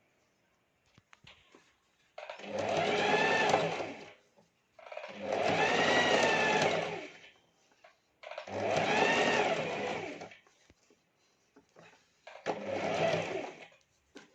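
Electric sewing machine stitching thread piping in four short runs of about two seconds each. The motor's whine rises and falls within each run as it speeds up and slows down, and faint clicks come in the pauses between runs.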